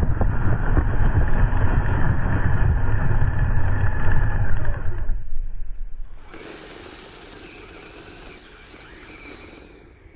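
Kyosho Snow Blizzard radio-controlled snowcat driving in snow: a loud, low rumbling noise from its electric motors and tracks. It cuts off about five seconds in and gives way to a quieter, steadier whine.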